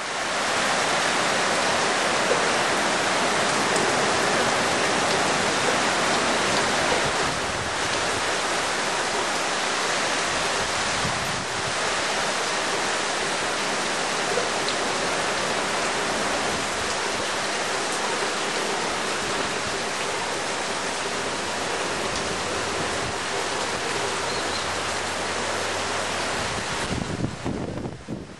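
Heavy wind-driven tropical downpour from the remnants of a tropical cyclone: a steady rush of rain, a little louder for the first seven seconds or so.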